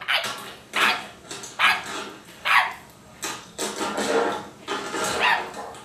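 A human voice barking and yelping like a dog, about seven loud barks in a rough rhythm.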